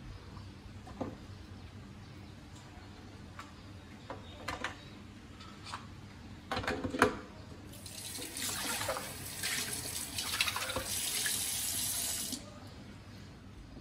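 Kitchen faucet running water into a milk container in the sink for about five seconds, stopping abruptly near the end. Before it, a few light knocks and clatters of things handled in the sink.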